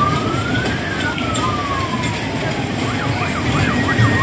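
An electronic siren-like tone makes one slow wail, rising and then falling. About three seconds in it switches to a fast warble of several pitch swings a second. Under it runs a dense, loud fairground din.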